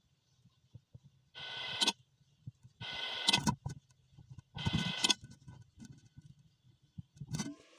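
Strong wind blowing in short gusts: three brief rushes of rustling noise about a second apart, with near silence between.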